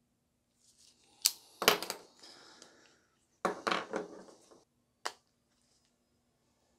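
Tools and small plastic parts being handled and set down on a wooden workbench: two clusters of clattering clicks with some rustling, then a single sharp click about five seconds in.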